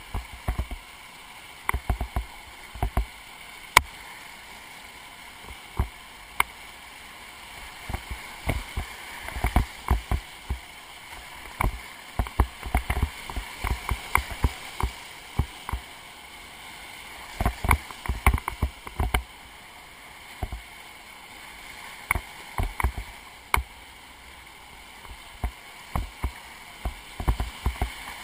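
Whitewater rapids rushing steadily around a kayak, heard from a camera on its bow, with frequent irregular thuds and knocks as splashing water strikes the bow and the camera.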